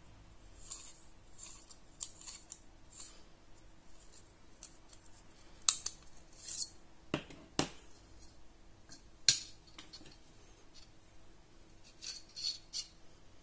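Light metallic scrapes and clicks of a steel fishing arrow being slid back and forth in an aluminium channel and the channel being handled, with a few sharper knocks around the middle and a quick cluster of clicks near the end.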